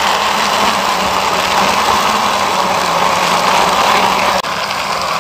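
Plastic wheels of a toy dump truck rolling over a rough painted concrete wall top as it is pushed by hand, a steady grainy rolling noise. It drops off abruptly at a click about four and a half seconds in.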